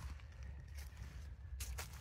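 Footsteps crunching on woodland ground, a few irregular steps with the clearest pair near the end, over a steady low rumble.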